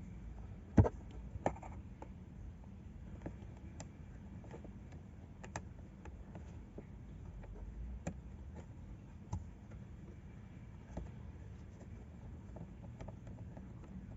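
Scattered clicks and light knocks of hands working a replacement fuse into a car's fuse box: a sharp click about a second in and another half a second later, then lighter irregular ticks.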